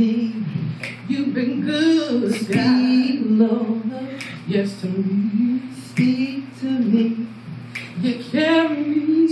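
Women singing a gospel song into microphones, with long held, wavering notes and short breaks between phrases over a steady low hum.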